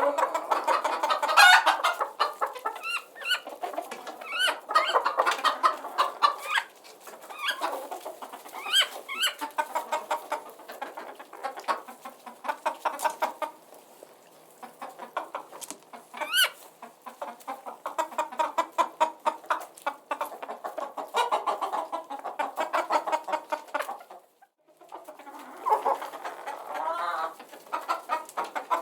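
A flock of chickens clucking almost without pause, with frequent short higher-pitched calls and a brief lull near the end.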